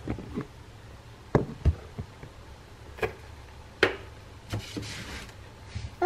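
Scattered light knocks and clicks, about eight spread unevenly, from things being handled and set down on a kitchen counter.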